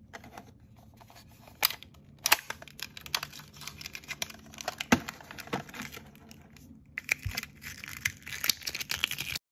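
Hands opening a plastic L.O.L. Surprise toy tower: a string of sharp plastic clicks and snaps as its small hinged doors are opened, with denser crinkling and rustling in the last couple of seconds.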